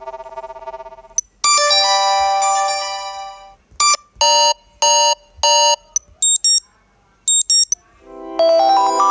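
Sony Xperia phone alarm tones, electronic and melodic. A bright chord rings out and fades, then three short chimes about two-thirds of a second apart, then two high double beeps, and near the end a new stepping melody begins.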